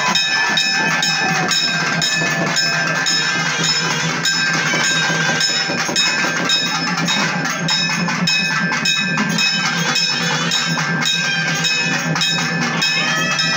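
Loud festival percussion music: fast, dense drum strokes under steady ringing bell-like metallic tones.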